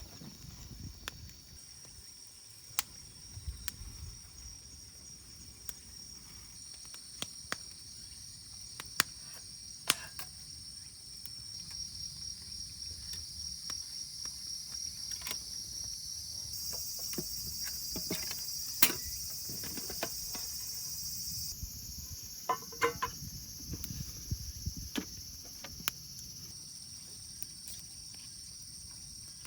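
Crickets chirring steadily in a high-pitched insect chorus, with scattered sharp clicks and ticks.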